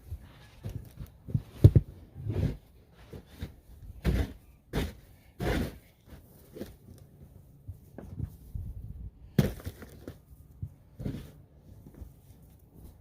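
A snow shovel working packed snow: a dozen irregular scrapes and thuds a second or so apart, with the loudest strokes in the first six seconds and another about nine seconds in.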